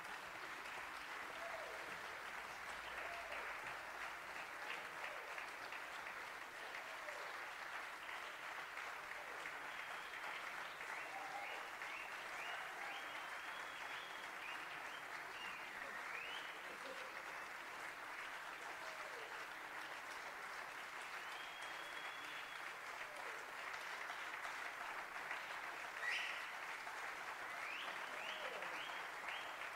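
Theatre audience applauding steadily, with scattered cheers rising above the clapping in the second half.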